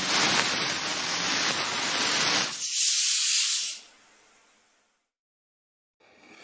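Intro sound effect: a loud, steady hiss that turns into a thinner, higher hiss about two and a half seconds in, then fades out.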